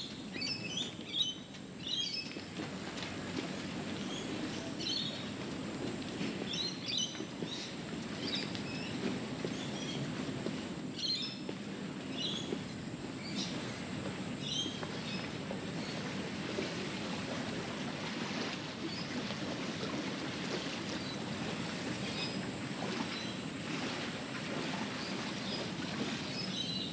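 Birds chirping in short calls now and then, more often in the first half, over a steady low rumble of background noise.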